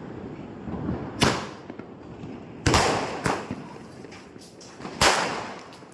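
Royal 60 firework going off: three loud bangs about a second and a half apart, with a weaker one just after the second, each followed by a short echoing tail.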